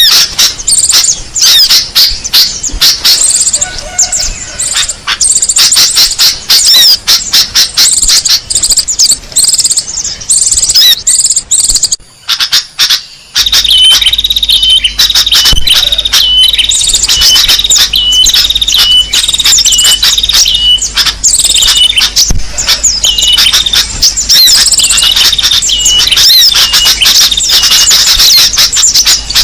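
Small songbirds chirping and calling rapidly and loudly, a bird-lure (pikat) recording for attracting small birds. About twelve seconds in the chirping breaks off briefly, then resumes with a short, clear note repeating about three times every two seconds over the dense chirps.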